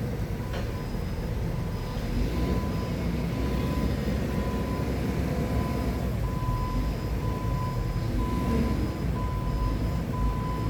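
Forklift engine running steadily under a repeating reverse-warning beep, about two beeps a second.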